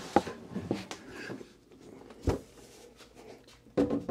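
Knocks and clunks of an EG4 hybrid solar inverter being carried and lifted onto its wall mount, with a sharp thud a little over two seconds in and a busier burst of handling noise near the end.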